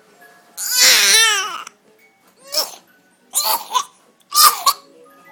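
A young boy coughing in a fit: one long, loud cough with his voice straining through it about half a second in, then three shorter coughs.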